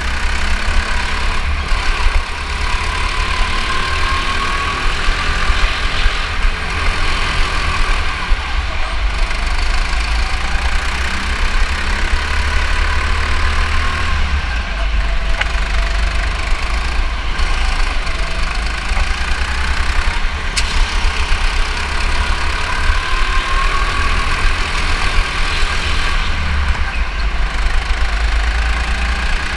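Go-kart engine running under throttle as the kart laps, its pitch rising a few times on the straights and easing off between, over a heavy low rumble.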